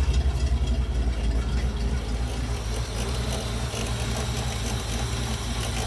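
1956 Facel Vega's V8 idling just after a cold start, with an even, pulsing beat; it is a little louder for the first couple of seconds, then settles.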